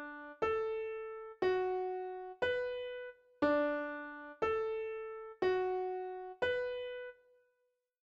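A piano-toned keyboard plays the solfège melody do-so-mi-la twice over, eight single notes about a second apart, each struck and dying away. The last note fades out about three quarters of the way through.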